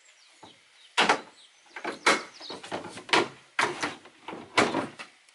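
An oar being set into the rowlock on a folding metal outrigger of a plywood rowing skiff: about six hard knocks and rattles of the oar shaft and fittings, with quieter handling noise between them.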